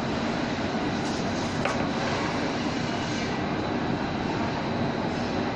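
Steady mechanical background noise, even and unchanging, with a faint high whine running through it.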